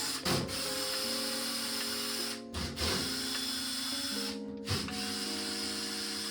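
Background music with sustained chords that change every second or so.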